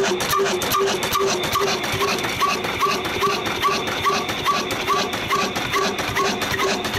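Old 22 HP Ruston & Hornsby single-cylinder diesel engine running steadily under load while driving a flour mill by belt. It makes an even, rhythmic clatter of ticks and short repeating tones, about two to three beats a second.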